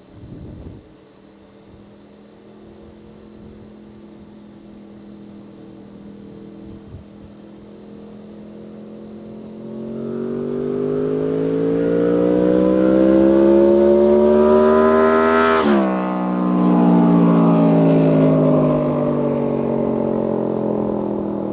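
Honda VFR750F's V4 engine through an aftermarket slip-on exhaust, riding past at speed: the note grows louder and rises in pitch as the bike approaches, drops sharply in pitch as it passes about 15 seconds in, then fades away.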